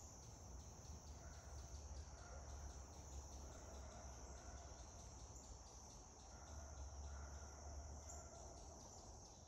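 Faint outdoor ambience: insects trilling steadily and high-pitched, with a few faint short calls and a low rumble underneath.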